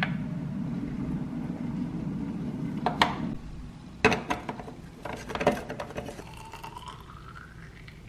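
Plastic and glass parts of a hand-pressed espresso maker clicking and clinking as they are fitted together, then water poured into its glass chamber, the pitch rising steadily as it fills. A low steady rush is heard over the first few seconds.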